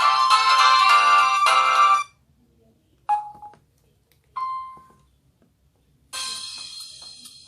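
Samsung Gravity 2 (SGH-T469) ringtone: a fast electronic melody that stops about two seconds in. Two short single tones follow, then near the end a long fading high tone as the next ringtone begins.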